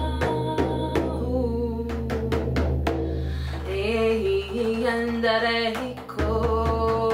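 Music: a woman's voice singing a wavering melody over a steady low drone and repeated drum beats. The drone drops out briefly about six seconds in.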